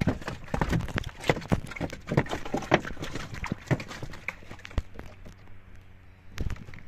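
Quick, irregular knocks and splashes from a wooden fishing boat being worked on open water, dense for the first few seconds and then thinning out.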